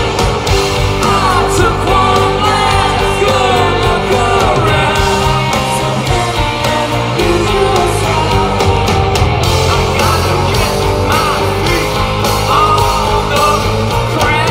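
Live rock band playing at full volume: drums, bass and electric guitars, with a male lead vocal singing over them.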